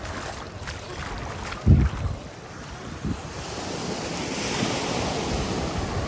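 Sea surf washing onto a sandy beach, with wind buffeting the microphone. A brief loud low bump of wind comes a little under two seconds in. In the second half a wave swells and hisses up the shore.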